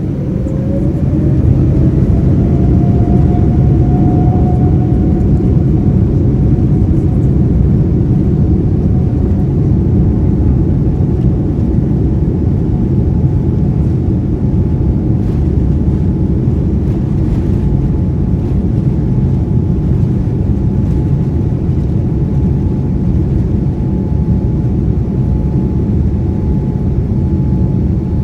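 Scoot Boeing 787-8's Rolls-Royce Trent 1000 turbofan engines spooling up to takeoff thrust. A whine rises in pitch over the first few seconds and then holds steady over a loud, continuous rumble.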